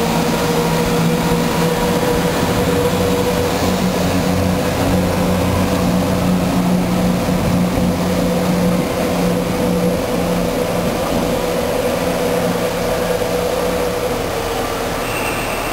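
Class 170 Turbostar diesel multiple unit pulling out past the platform, its underfloor diesel engines and transmission giving a steady, loud howl over low engine rumble and wheel noise. The howl fades near the end as the train draws away.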